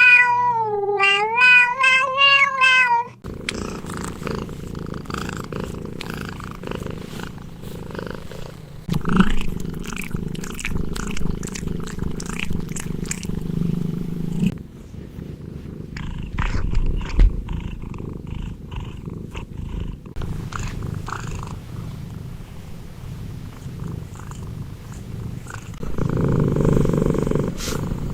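A cat meows for the first few seconds, its pitch wavering up and down, then purrs steadily for the rest of the time, the purr growing louder near the end.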